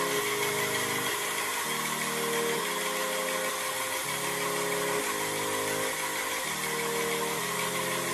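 Background music: sustained chords changing about once a second over a dense, gritty high layer.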